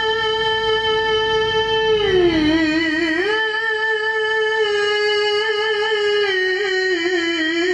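A male qari's voice, amplified through a microphone, reciting the Quran in the melodic tilawah style and holding one long drawn-out note. The note dips in pitch about two seconds in, climbs back, and steps lower again near the end, wavering slightly.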